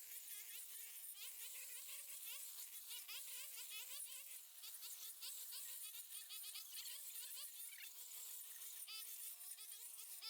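An insect's thin buzzing whine that wavers up and down in pitch, with many short, high chirps over it.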